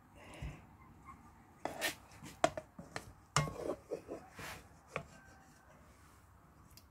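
Spoon knocking and scraping against a cooking pot while braised chicken pieces are lifted out of their broth: a run of sharp clinks and taps between about two and five seconds in.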